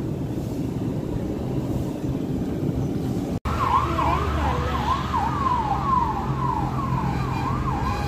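A steady low rumble, then, after a sudden cut about three and a half seconds in, an emergency vehicle siren sweeping up and down about twice a second over low traffic rumble.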